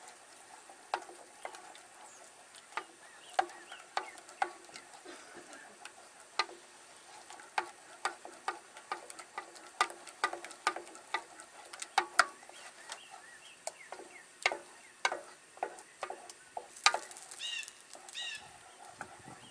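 Wooden spoon stirring thick cheese sauce in a small enamel saucepan: irregular clicks and scrapes as the spoon knocks against the pan's sides and bottom.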